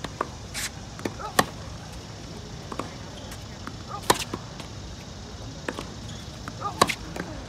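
Tennis rally from the baseline: sharp pops of racket strings hitting the ball, the loudest three about two and a half seconds apart, with fainter hits and ball bounces on the hard court between them.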